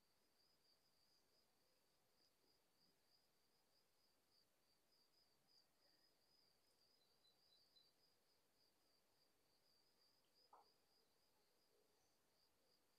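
Near silence, with only a faint, steady high-pitched pulsing tone.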